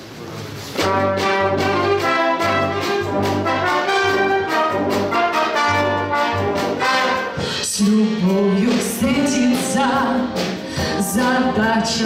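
Brass band playing an instrumental introduction: full brass chords over a bass line, striking up about a second in. A woman's singing voice comes in near the end.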